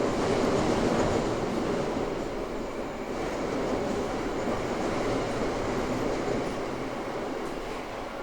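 Toei 5300 series subway train (Mitsubishi GTO-VVVF set 5315F) running: a steady rumble of wheels on the track, loudest in the first couple of seconds, then easing slightly.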